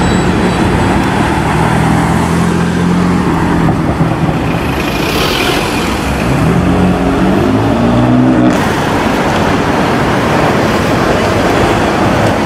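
BMW M4 coupe's engine pulling away through traffic, its note climbing as it accelerates about six to eight seconds in. An abrupt cut then brings a steady rush of engine and traffic noise as a Ferrari 599 drives past.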